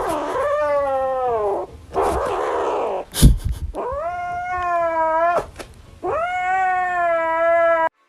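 A domestic cat giving three long, drawn-out yowling meows, the first falling in pitch, with a breathy rasp between the first two. A loud thump comes about three seconds in.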